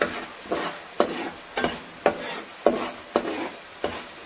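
A metal spoon stirring and scraping through spice paste frying in oil in a nonstick frying pan, about two strokes a second, over a steady sizzle. The masala is being fried down until the oil separates, with milk just added.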